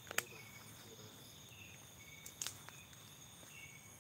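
Night insects trilling steadily at a high pitch, with short chirps repeating about once a second. Two sharp clicks break in, one about a fifth of a second in and another about two and a half seconds in.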